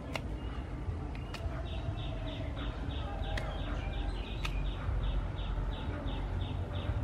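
A short high chirp repeating about three times a second, starting a couple of seconds in, over a steady low rumble, with a few sharp clicks.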